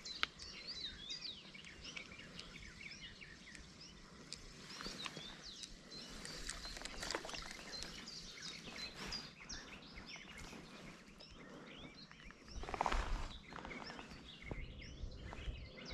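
Outdoor ambience of many small birds chirping and calling over a faint background hiss, with a short, louder burst of noise about thirteen seconds in.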